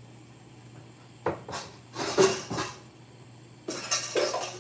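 Kitchen cookware and utensils clattering on a gas range: a few separate knocks and scrapes, over a steady low hum.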